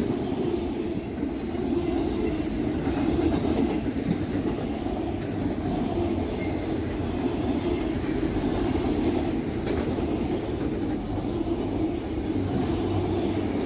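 A freight train of empty cars rolling past on the rails, a steady noise of wheels on track with no let-up.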